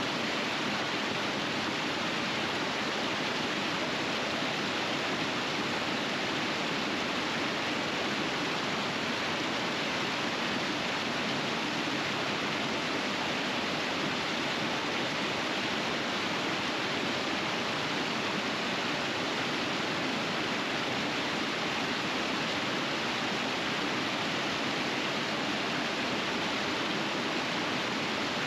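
River water rushing over rapids, a steady, even hiss that does not change.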